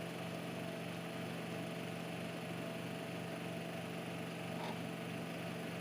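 Steady low hum with a faint hiss under it, unchanging throughout: background room tone with no distinct event.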